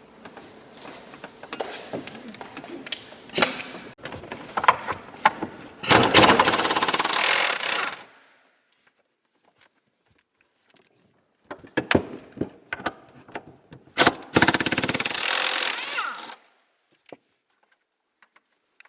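Impact wrench with a 16 mm socket spinning out the two top mounting bolts of the rear shock absorbers, in two fast-hammering bursts of about two seconds each. Clicks and clinks of the tool and socket come before and between them.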